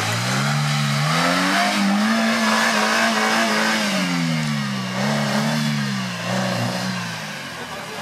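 Suzuki Jimny engine revving hard under load as the truck climbs out of a muddy creek rut. The pitch rises over the first two seconds, holds, then falls and wavers as the throttle is worked.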